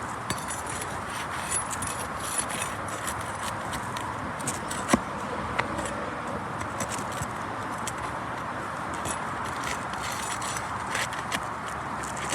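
Scattered clicks and scrapes of asphalt roof shingles being worked loose and roofing nails being pried out, with the sharpest click about five seconds in, over a steady background hiss.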